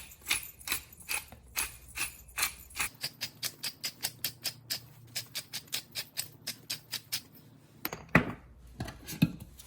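Pepper being dispensed into a measuring spoon: a steady run of light clicks, about three to four a second. It ends with two louder knocks near the end.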